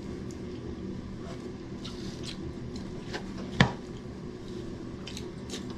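Mealtime eating noises: chewing and scattered small clicks and crinkles as hands pick at rice and grilled chicken on a plastic table sheet, with one louder click about three and a half seconds in, over a steady low hum.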